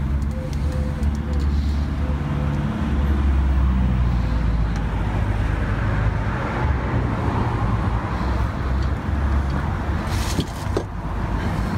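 A motor vehicle's engine running close by, a continuous low rumble like street traffic, with a couple of sharp clicks near the end.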